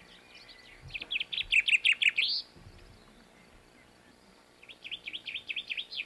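Recorded song of a Canary Islands chaffinch. There are two phrases of quick falling notes. The first comes about a second in and ends with a rising flourish; the second starts near the end.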